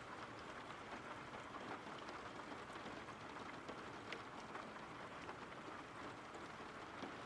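Faint, steady rain falling, with the odd sharper drop ticking through.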